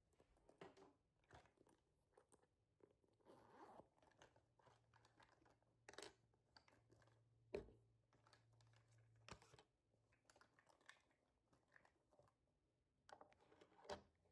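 A person eating, with quiet crunching and chewing sounds and small clicks at irregular intervals, one sharper knock about halfway through.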